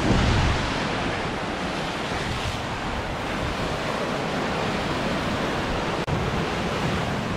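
Ocean surf washing in and breaking over rocks at the foot of a sea cliff, a steady rushing wash.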